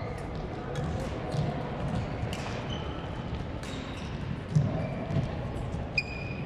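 Badminton hall sounds: sneakers squeaking on the court floor, footsteps, and sharp racket strikes on shuttlecocks from several courts. The loudest strike comes about four and a half seconds in.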